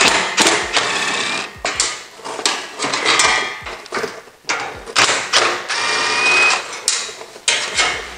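Cordless power driver with a 10 mm socket running in about four spurts, backing out the bolts that hold a steel shipping cage to a motorbike's crate base.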